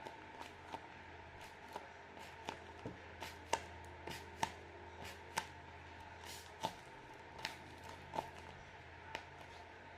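Hands handling a squishy toy: a series of light, sharp taps and clicks at irregular intervals, roughly one a second, over a faint steady hum.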